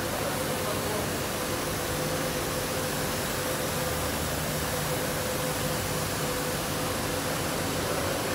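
Müller Martini 1571 gatherer running with a steady mechanical hum and hiss, with a held tone and no clear beat.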